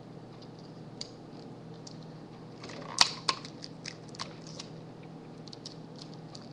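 Hands handling small craft materials on a desk: scattered light clicks and crackles, with a sharp click about three seconds in followed by a few smaller ones. A steady low hum runs underneath.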